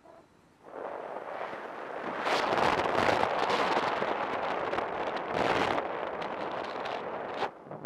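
Wind rushing over a helmet camera's microphone under an open parachute canopy. It swells in about a second in, stays loud and gusty, and drops away briefly near the end.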